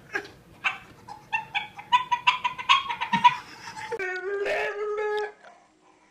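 A cat calling: a quick run of short, choppy vocalisations, then one longer held meow about four seconds in that stops abruptly.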